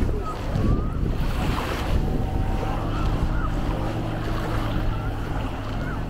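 Wind buffeting the microphone over Baltic Sea waves washing onto the beach. A low steady hum comes in about halfway through.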